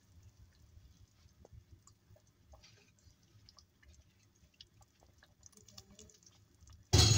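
Faint, scattered crackles and ticks from radish strips and tamarind masala cooking in a pot, followed near the end by one loud thump.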